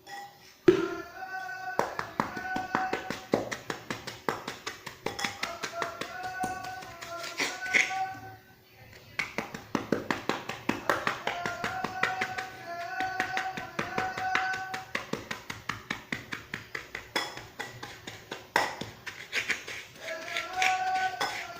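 Crunchy mud and sand clumps being crumbled by hand, a fast, uneven stream of crisp cracks and crunches, over background music with a simple held melody.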